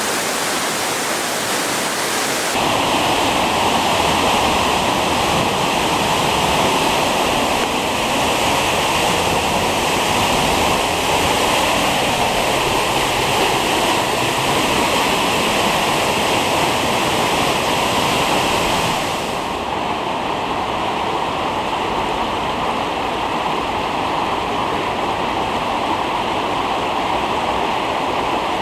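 Steady rushing of flowing water, changing character abruptly twice: about two and a half seconds in, and again around two-thirds of the way through.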